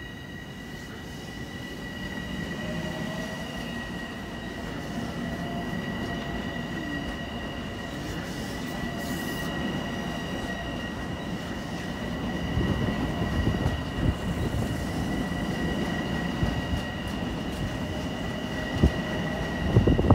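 Long Island Rail Road electric multiple-unit train moving along the platform: a low rail rumble that builds steadily louder, under a steady high-pitched squeal.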